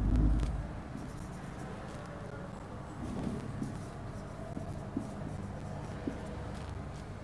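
Marker pen writing on a whiteboard: faint scratching strokes of the felt tip, with a couple of light taps. A dull low thump at the very start.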